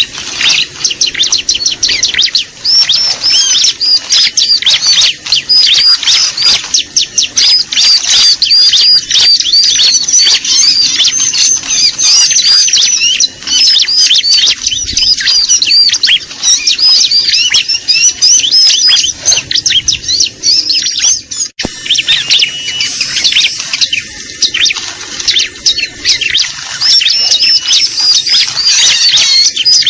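Ciblek (bar-winged prinia) song played as a bird-trapping lure call: loud, fast, continuous high chirping, with a brief sharp break about two-thirds of the way through where the recording is spliced.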